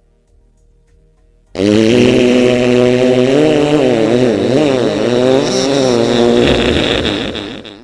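One long, loud fart lasting about six seconds, starting about a second and a half in. It holds a steady low pitch that wobbles up and down in the middle and fades out near the end.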